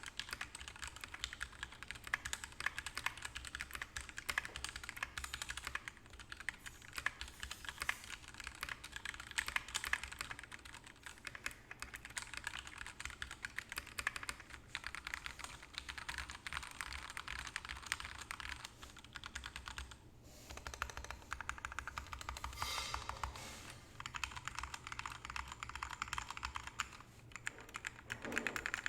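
Mechanical keyboard with lubed Gateron Ink Yellow linear switches (Krytox 205g0), typed on steadily in rapid keystrokes, with a brief pause about two-thirds of the way through.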